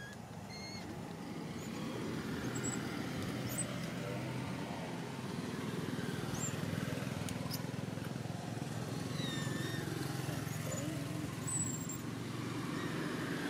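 Steady low rumble of vehicle traffic on a nearby road, building about two seconds in, with short high squeaks and chirps dotted over it.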